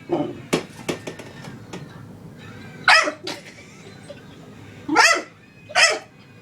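Dog barking at a broom being swept, in loud short barks spaced a second or two apart, with light clicks in between.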